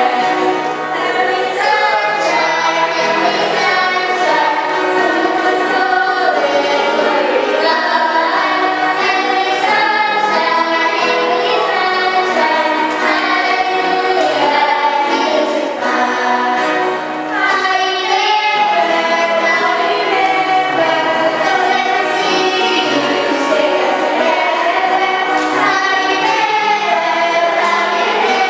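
A choir singing a hymn with accompaniment, voices held together in continuous song.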